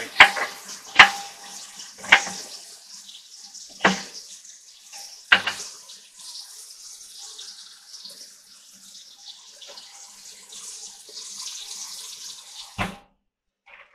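Kitchen faucet running into a stainless steel sink: a steady splashing hiss with about six sharp knocks scattered through it, the loudest in the first couple of seconds. The water cuts off abruptly near the end.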